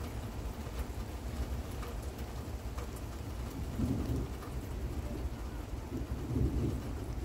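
Distant thunder rolling in a low, continuous rumble that swells about four seconds in and again near the end, over steady rain with scattered drips.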